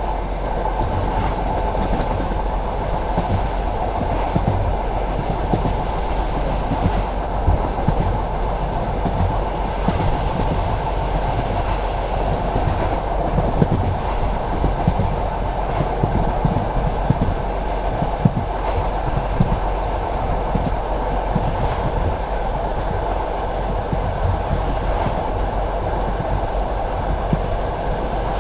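Passenger train carriage running along the line, a steady rumble of wheels on rails with irregular clicks and knocks from the rail joints.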